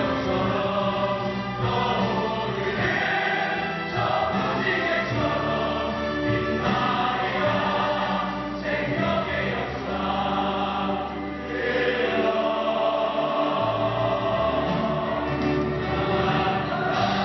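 Ensemble of voices singing together over instrumental accompaniment, in the manner of a stage musical's company number.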